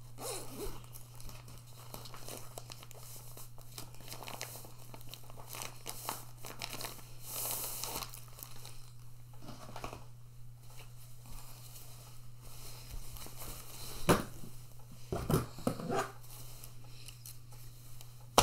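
Plastic packaging crinkling and tearing as a rolled fabric bed pad is pulled out of its wrapper, then the pad's fabric rustling as it is unfolded. A few louder knocks and rustles come about two seconds before the end.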